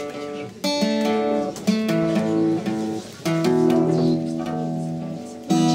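Steel-string acoustic guitar playing unaccompanied: four strummed chords, each left to ring for one to two seconds before the next.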